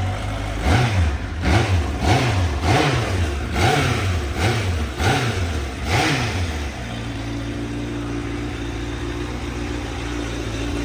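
1998 Honda CBR1000F's inline-four engine revved in about seven quick throttle blips, each rising and falling in pitch, then settling to a steady idle about two-thirds of the way in.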